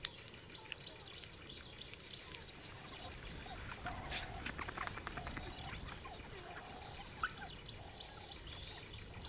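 Faint chirping calls over a quiet background, with scattered soft clicks. A quick run of high chirps comes about four to six seconds in, alongside a few short lower calls.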